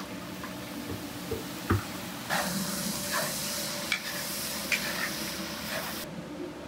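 Diced filling frying in a large cast-iron kazan, sizzling steadily while it is stirred and scraped with a wooden spatula. A few sharp knocks of the spatula against the pot come through, and the sizzle grows brighter a little after two seconds in.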